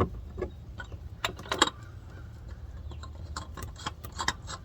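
Scattered light clicks and taps of the plastic oil filter cap, fitted with a new filter cartridge and O-ring, being set back into its housing on top of a 2015 GMC Canyon engine and turned in by hand, over a low steady hum.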